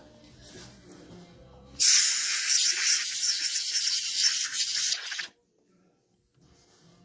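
Compressed air blown through a lawnmower carburetor to clear it while cleaning it. One steady hiss of about three and a half seconds starts about two seconds in and cuts off sharply.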